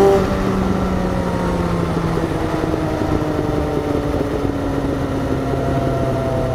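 Motorcycle engine with the throttle shut at the start, its note dropping in loudness and then falling slowly as the bike coasts down, under a steady rush of wind.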